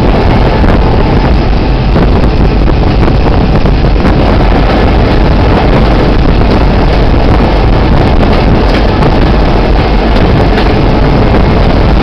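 Diesel locomotive moving along the track, its engine running steadily under heavy wind buffeting on the microphone. The noise is loud and even throughout.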